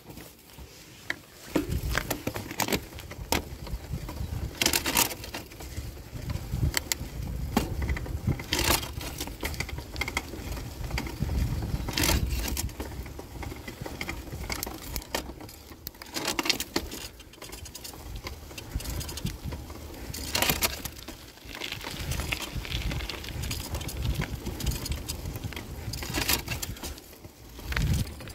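Bicycle rolling along a wet forest track, heard from the handlebars: a low tyre and road rumble that starts about a second and a half in, with frequent sharp clicks and rattles as the bike jolts over the surface.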